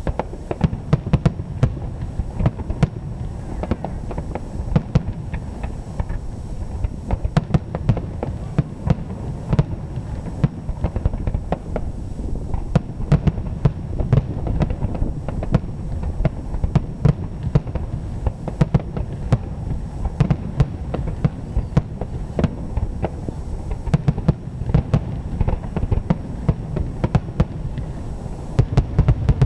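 Aerial firework shells bursting in a dense barrage: sharp bangs several times a second, overlapping into a continuous low rumble.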